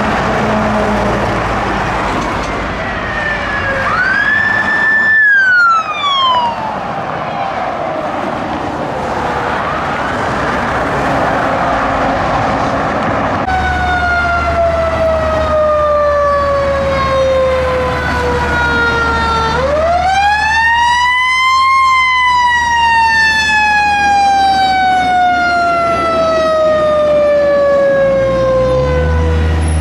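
Fire engine sirens winding up and then slowly winding down in long wails: a short rise and fall about 4 seconds in, then a long rise that peaks a few seconds after the middle and falls slowly away. A low steady rumble runs under the second half.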